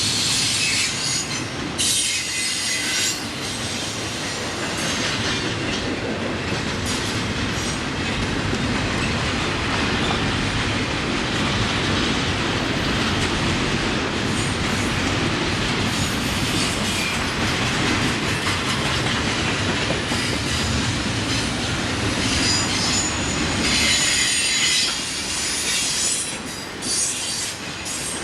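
Railroad cars rolling past, the wheels clattering over the rails in a steady rumble, with high-pitched wheel squeal at the start and again near the end.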